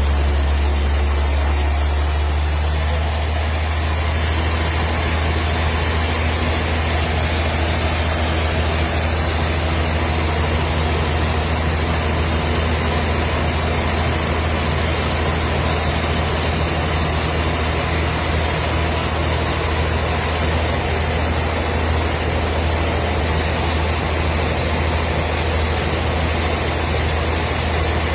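Wood processing machine running steadily, a constant low engine drone with a hiss of mechanical noise over it.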